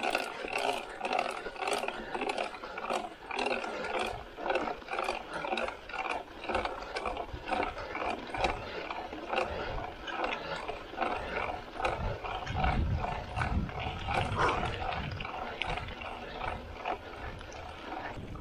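A mountain biker's hard, rhythmic breathing, about three breaths a second, while riding a sandy forest trail, over the rattle of the bike. A low rumble comes in for a few seconds past the middle.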